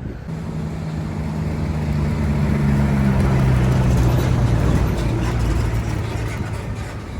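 Bus engine running with a low, steady hum and road rush, growing louder to a peak about halfway through and then easing off.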